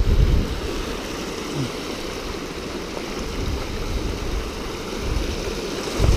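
River water rushing steadily through a shallow rocky chute over a low stone ledge. Low rumbling bumps sound right at the start and again just before the end.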